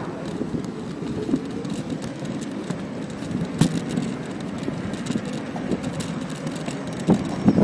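Steady rolling rumble of a small electric scooter's wheels on a paved path, heard from the moving ride, with a sharp knock a little after halfway through and a few more knocks near the end.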